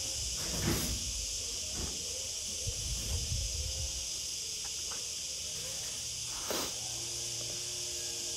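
Steady high hiss of a phone microphone's background noise, with a couple of soft handling bumps, one near the start and one about two-thirds through.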